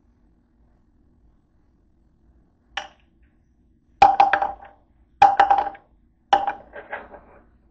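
Large white tablets dropped one at a time into an empty plastic pill bottle: a light click, then three rattling clatters about a second apart as each tablet bounces inside the bottle.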